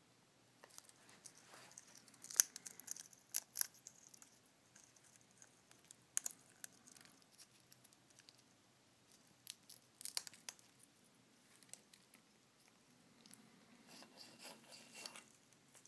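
African grey parrot cracking and chewing seeds with its beak: irregular sharp cracks and crunches, the loudest about two and a half seconds in.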